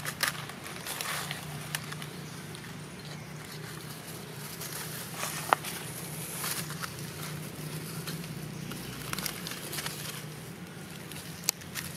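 Dry leaf litter rustling and crackling with scattered sharp clicks as macaques shift about on it, over a steady low hum.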